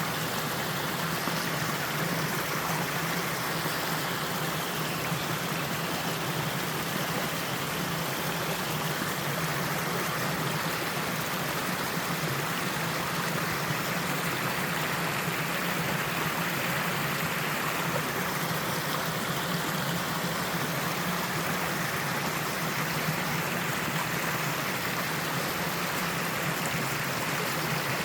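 A three-tiered mountain waterfall pouring into a stream: a steady, unbroken rush of water.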